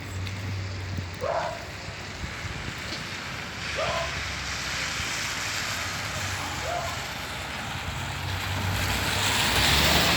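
Wind from a winter storm blowing steadily and gusting louder near the end, with a low steady hum beneath and a few short, faint sounds repeating about every three seconds.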